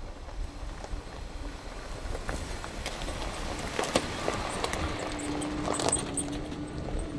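A pickup truck driving on a dirt trail, its low engine and road rumble broken by scattered sharp clicks and knocks that come thickest about halfway through.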